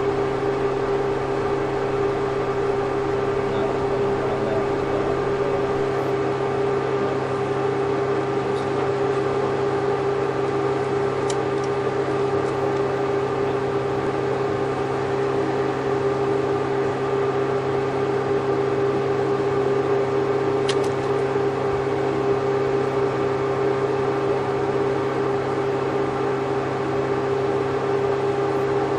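Steady machine hum in a pig barn, a constant mid-pitched tone over a lower drone that never changes, with two faint ticks about 11 and 21 seconds in.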